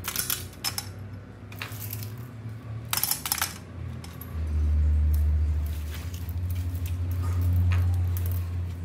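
Ceramic filter rings and pebbles set down one by one on the glass floor of a tank, giving sharp clinks and clicks, with a cluster about three seconds in. A loud, steady low hum comes in about four seconds in and holds to the end.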